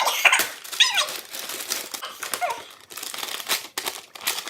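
Crinkling and rustling of a gift bag and its wrapping as it is handled and opened, a dense run of crackles and clicks, with a couple of short high squeaks mixed in.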